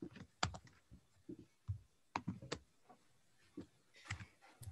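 Typing on a computer keyboard: a string of faint, irregular key clicks.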